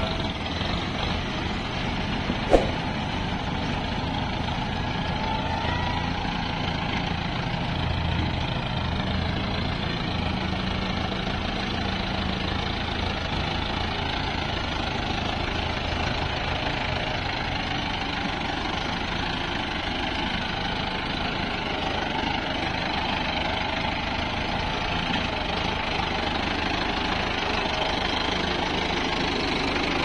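Diesel engines of a Mahindra Arjun Novo tractor and a JCB 3DX backhoe loader running steadily, with one sharp click about two and a half seconds in.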